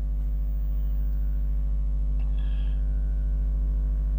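Steady low electrical mains hum, buzzy with overtones, running unchanged at nearly speech level.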